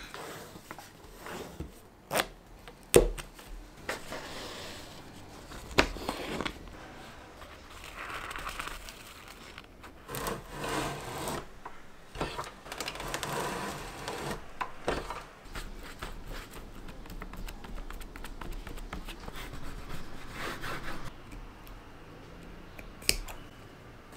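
Hands-on bookbinding work: paper sliding, rustling and scraping as pages and signatures are handled and trimmed, broken by a few sharp clicks and knocks.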